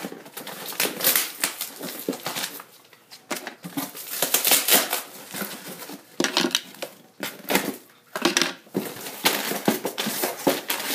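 Cardboard shipping box being torn open by hand, with the packing tape ripped and scraped off and the cardboard flaps pulled back. It comes in irregular bursts of ripping, scraping and rustling.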